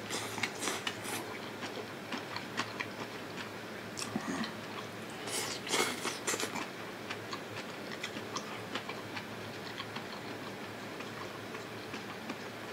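A person eating a beef stir-fry rice bowl close to the microphone: chewing with many small clicks and taps, with two louder, busier stretches about half a second in and around five to six seconds in.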